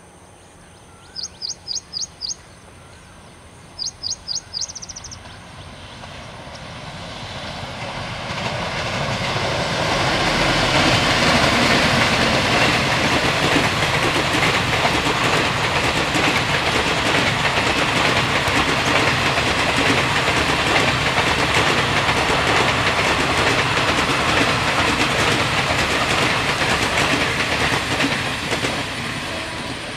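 Two quick runs of high bird chirps in the first few seconds. Then a WAP-7 electric locomotive and its passenger coaches approach and pass, the wheels running on the rails; the train noise swells from about six seconds in, stays loud for most of the rest, and eases near the end.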